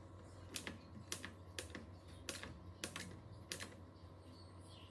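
Footsteps on a hard floor: a run of light clicking steps, paired and about every half second.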